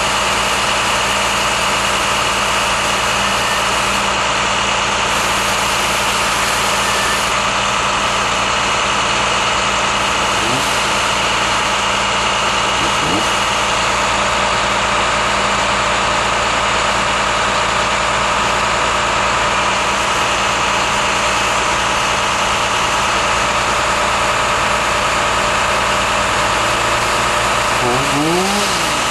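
A motor engine running steadily at a constant speed, with a couple of brief rising-and-falling sweeps near the end.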